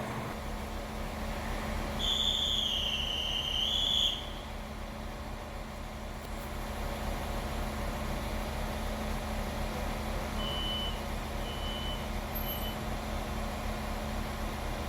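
A train standing at a station platform with a steady low hum. About two seconds in, a high, slightly wavering whistle sounds for about two seconds, and later come three short high beeps.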